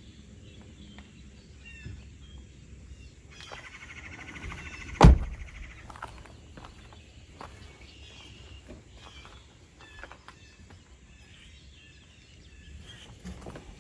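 An SUV door is shut with a single heavy thunk about five seconds in. Birds chirp faintly in the background.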